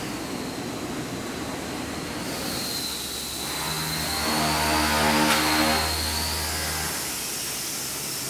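Air-powered orbital sander hissing with a steady high whine. A lower machine hum joins about three seconds in, swells, and cuts off suddenly near the end.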